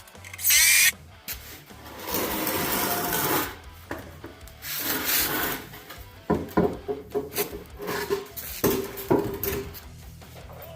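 Workbench lumber being worked by hand: a short sharp burst, then two long scraping strokes on wood, followed by a run of sharp knocks and clicks.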